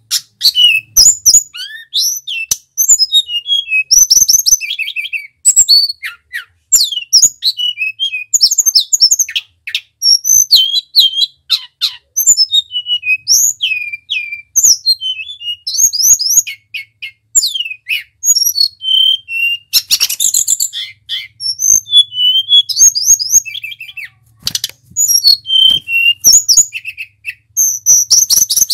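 Male hill blue flycatcher (tledekan) singing: a fast, nearly unbroken run of high whistled notes and short trills, many of them falling in pitch, with a brief harsher burst about two-thirds of the way through.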